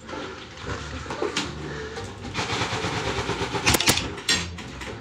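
Airsoft rifle shots: a few sharp cracks between about three and a half and four and a half seconds in, over a rustling background.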